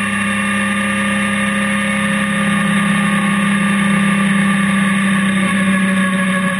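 Honda NC700X motorcycle's 670 cc parallel-twin engine running steadily at cruising speed, with wind and road noise from riding.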